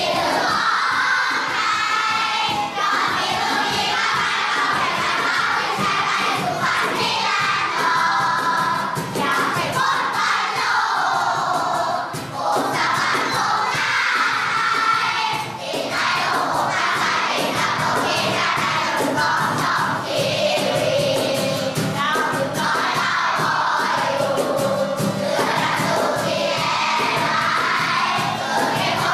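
A large group of children singing a Thai football cheering song together, over backing music with a steady beat.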